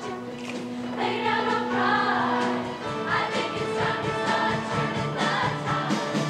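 Show choir singing together, with long held low accompaniment notes beneath the voices.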